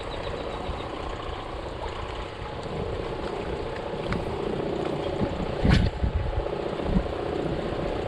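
Wind rumbling on the microphone, with a steady mechanical whir or drone that comes in about three seconds in and a brief knock near six seconds.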